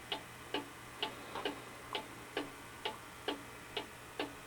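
Mechanical cuckoo clock ticking steadily, an even tick-tock of about two ticks a second.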